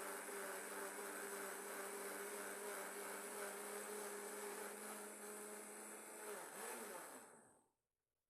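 Countertop blender running steadily on the liquid ingredients for a sweet bread dough (milk, eggs, sugar, oil, yeast) with a steady motor hum. About six seconds in it is switched off and the motor's pitch falls away until it stops.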